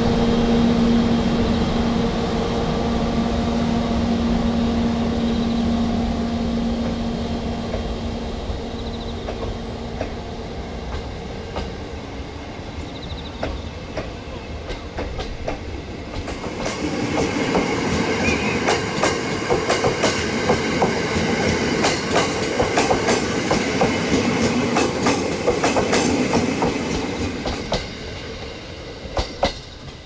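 A JR EF64 electric locomotive hauling a string of E217-series commuter cars away at low speed. A steady hum fades over the first ten seconds. From about halfway the towed cars' wheels clatter over rail joints and points, many clicks in quick succession, easing off near the end.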